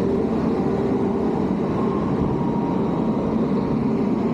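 Steady rumbling noise of a bicycle ride: wind buffeting the microphone over the crunch of a beach cruiser's tyres rolling on a gravel trail.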